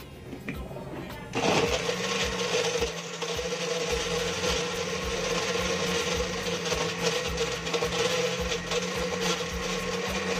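Imarflex Power Blender switching on about a second in and running steadily at an even pitch, its blades churning ice in a drink in the jar.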